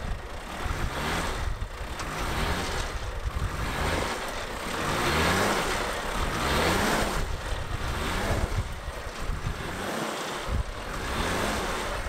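Off-road 4x4 engine revving hard in repeated short rises, with a rushing noise that swells about five seconds in and fades again.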